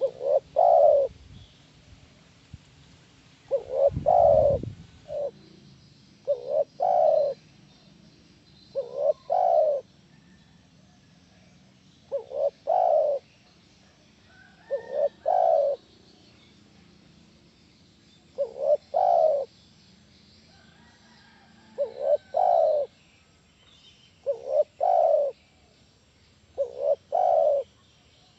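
Spotted dove cooing: about ten short phrases of a few deep, rolling coo notes each, one every two to three seconds. A brief low thud about four seconds in.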